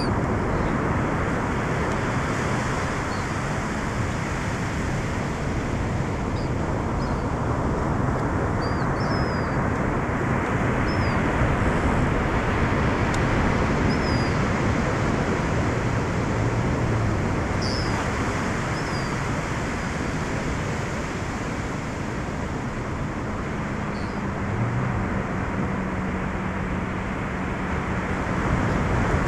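Surf breaking and washing on a sandy beach, with wind on the microphone, as a steady rushing noise. Short high chirps come and go every few seconds.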